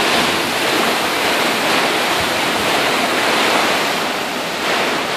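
Heavy rainstorm downpour: a steady, even hiss of rain pouring down, with no breaks.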